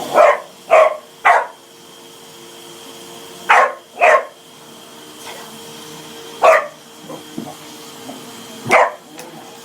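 A dog barking at a running vacuum cleaner: seven short barks, three in quick succession at the start, two more about halfway through the first half, then two single barks later, over the hoover's steady hum.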